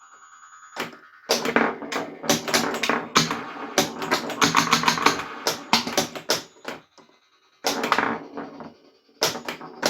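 3D-printed pinball machine in play: rapid sharp clicks and knocks of flippers, solenoids and the ball hitting parts, mixed with the game's electronic sound effects. The clatter starts about a second in, stops briefly near 7 seconds, and picks up again twice before the end.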